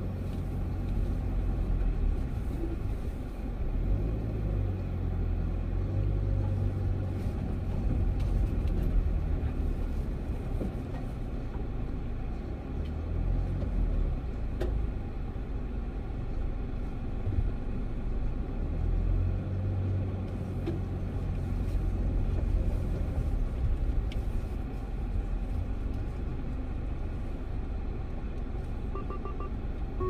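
Car driving slowly over a bumpy dirt track, heard from inside the cabin: a steady low rumble of engine and tyres, with a few light knocks from the bumps. Near the end a short electronic beeping starts.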